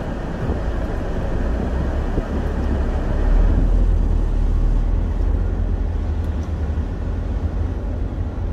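Car air conditioner blowing hard on its maximum setting inside the cabin, over the low rumble of the car's engine and tyres as it drives. The rumble swells a little about three seconds in.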